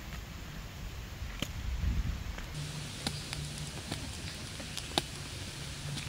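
Footsteps and handling rustle of a handheld camera carried along a forest trail, with a low rumble and a few scattered sharp clicks.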